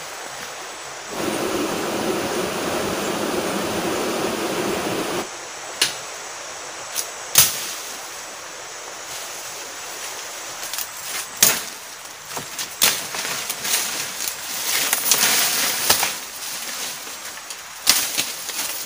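Rustling and sharp snaps of brush and twigs as someone moves through dense forest undergrowth, with about half a dozen separate cracks spread through it. About a second in, a steady rushing noise starts suddenly, lasts about four seconds, and stops abruptly.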